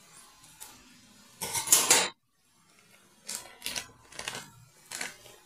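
Plastic wrapping crinkling and rustling as it is pulled off a ham, in a few short bursts. The loudest and longest comes about a second and a half in and cuts off suddenly, followed by four shorter crinkles.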